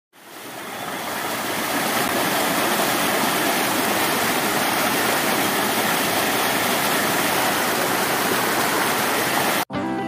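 Shallow rocky river rushing and splashing over boulders: a steady hiss of white water that fades in over the first couple of seconds. It cuts off suddenly near the end, and guitar music takes over.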